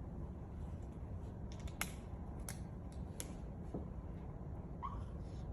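Three faint, sharp clicks a little under a second apart, over a steady low hum.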